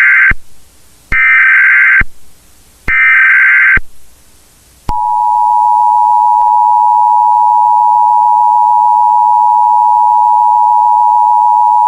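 Emergency Alert System signal: the last of one data burst and two more, each about a second long, then about five seconds in the steady two-tone attention signal starts and holds. The bursts are the coded header that precedes an emergency alert, and the two-tone signal warns listeners of the announcement that follows.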